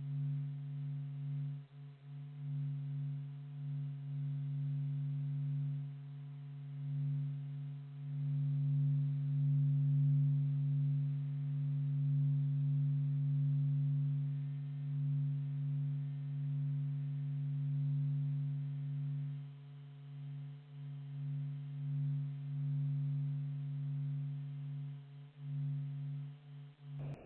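Sonified space recording: electromagnetic vibrations from a planet or comet converted into audible sound, heard as a low, steady droning hum with fainter overtones that slowly swells and fades.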